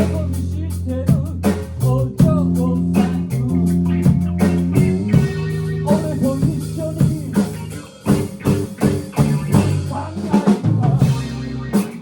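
Rock band playing an instrumental passage live: drum kit with snare and bass drum hits over sustained bass and guitar notes. About eight seconds in the loudness dips and the drums carry on with sharp separate hits.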